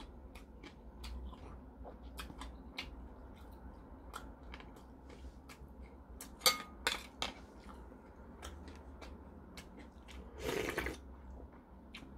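Chewing with small wet mouth clicks. About six and a half seconds in comes a sharp clink with a brief ring as the ceramic bowl of malatang is handled. Near the end there is a slurp of the spicy broth drunk straight from the bowl.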